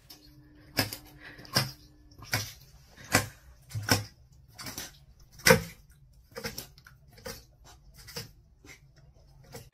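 A dog drinking messily from a steel water bowl: a series of sharp splashes and knocks, roughly one to two a second.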